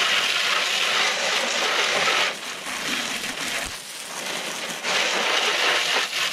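Water spray thrown off the spinning tires of an RC monster truck, a steady rain-like hiss that drops back a little past two seconds in and swells again near five seconds.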